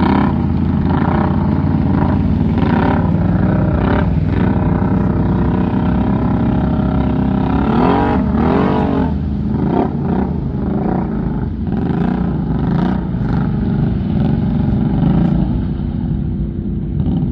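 ATV engine running with the throttle worked on and off, its pitch rising and falling several times, most strongly about eight seconds in.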